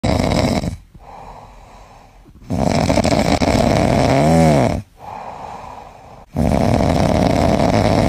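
Sleeping flat-faced dog snoring loudly: three rough snoring breaths about three seconds apart, with softer breaths between. The middle snore ends in a brief whistling tone that rises and falls.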